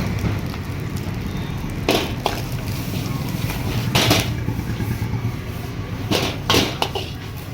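Steady low roar of a high-flame gas burner under a wok, with about five sharp metal clanks of a spatula striking the pan as the food is tossed.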